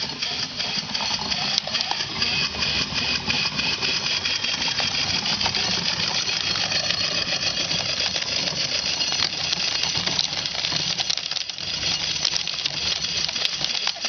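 Small cast-iron corn sheller, belt-driven by a PM Research No. 4 model steam engine, shelling an ear of corn: a rapid, even clatter with a wavering high whine through the middle.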